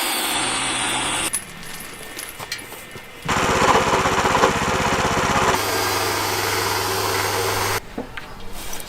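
Engine-driven cutting machinery in several abruptly cut shots: a loud noisy stretch, a quieter one, a loud stretch with a fast rapid pulse, then a steady low drone, ending quieter.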